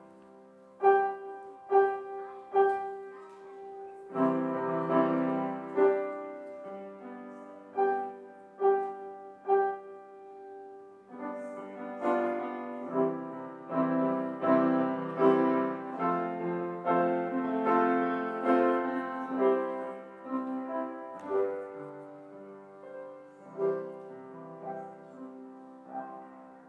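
Piano playing a slow, chordal passage to close out a song's accompaniment, ending on a held chord that fades away.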